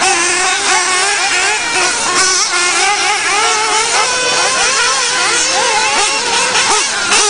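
Small engines of several radio-controlled off-road cars racing, with high buzzing tones that rise and fall quickly and overlap as they rev and back off.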